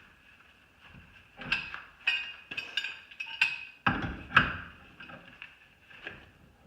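Metal clinks and clanks of a 12-inch smooth jaw pipe wrench being worked on a round pipe, its jaws knocking against the pipe as it is swung and reset. A run of sharp, ringing strikes falls in the middle few seconds, the loudest about four seconds in.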